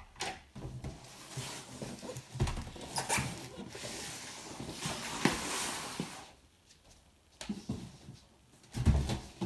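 Cardboard boxes being handled and set down on the floor: knocks, with cardboard scraping and rustling through the middle, then a heavy thump near the end.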